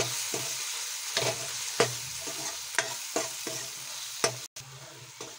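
Masala frying in oil in a metal kadhai, sizzling steadily while a steel ladle stirs it, with about ten clinks and scrapes of the ladle against the pan. The sizzle turns quieter about four and a half seconds in.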